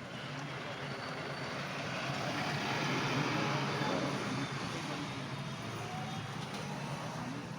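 A road vehicle passing, its traffic noise swelling to a peak about three seconds in and then fading.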